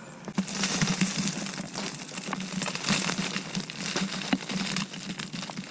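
Dense crinkling and crunching with scattered clicks, starting about half a second in: bagged garden mulch and its plastic bag being handled.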